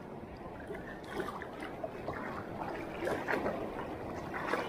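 Shallow seawater sloshing and lapping around a wading angler's legs as a hooked giant trevally is drawn in at the surface.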